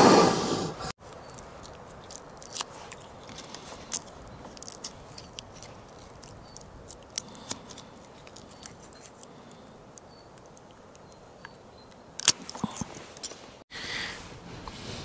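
Scattered light clicks, snips and taps of hand work as holes gnawed by mice are patched and glued, over a faint steady background.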